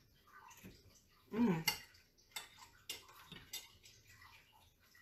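Metal fork clinking against a plate several times while eating, with a short hummed vocal sound of a person about a second and a half in, the loudest moment.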